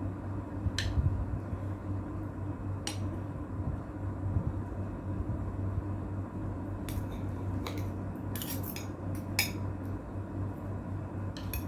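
Cutlery clinking and scraping on a plate: a few scattered sharp clinks, several in a cluster near the middle of the stretch, over a steady low hum.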